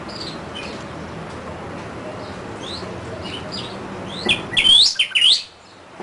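Northern cardinal singing: scattered short, high chirps, then about four seconds in two loud, sweeping whistled notes that cut off suddenly.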